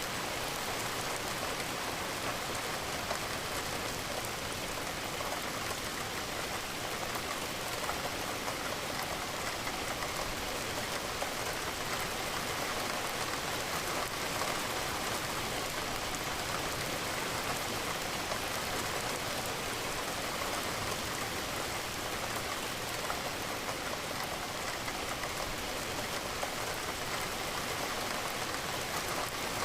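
Steady rain falling, a dense even patter of raindrops on a surface with no breaks or swells.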